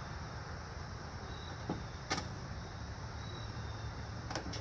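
A few scattered sharp clicks of a screwdriver and bolts working on a plastic-and-metal front license plate bracket as it is screwed onto a truck bumper, the loudest about two seconds in, over a steady low background rumble.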